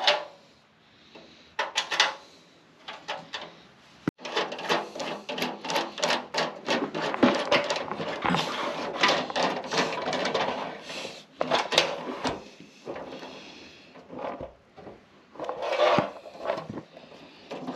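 Long-handled hand rivet nut tool being threaded on and worked to set rivet nuts in a steel radiator core support: a dense run of metallic clicks, rattles and scrapes through the middle, with scattered clicks before and after.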